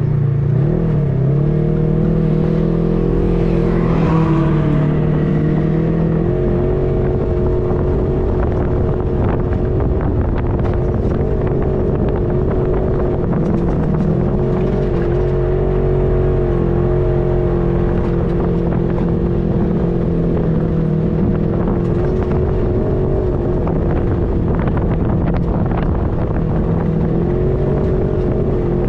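2020 Polaris RZR XP4 side-by-side's engine running under throttle while driving. Its pitch dips and rises a few times in the first few seconds, then holds mostly steady.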